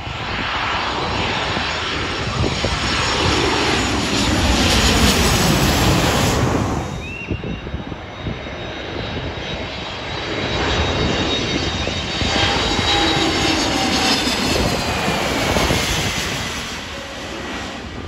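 Twin-engine jet airliner passing low overhead on landing approach: a loud engine rush with a whine that falls in pitch as it goes by, fading about seven seconds in. A second arrival swells and fades over the later seconds.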